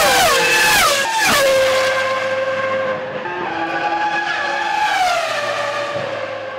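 Ferrari Formula 1 car engine shifting down through several gears, its high note dropping in quick steps, then holding a steady high pitch. A second, lower engine note joins about three seconds in, and the main note falls once more near the end.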